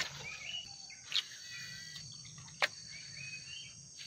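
Steady high-pitched drone of insects along a tropical riverbank, with a bird calling twice with a short rising phrase. Three sharp clicks stand out, about a second or so apart.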